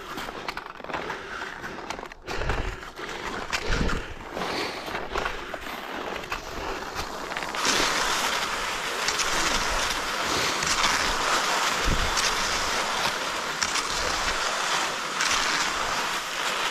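Cross-country skis sliding over groomed snow, with uneven scrapes and knocks in the first half; from about halfway through, a steady hiss as the skis glide along the set tracks.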